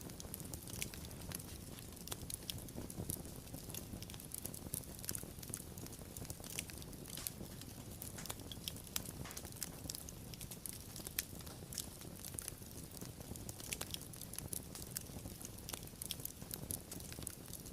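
Wood fire burning steadily: a low rumble of flame with many small, sharp crackles and pops at irregular intervals.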